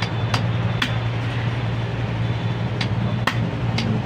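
Hammer knocking on the steel distributor shaft, five sharp metallic taps at uneven spacing, to drive out the pin so the part on the shaft can come off. A steady low hum runs underneath.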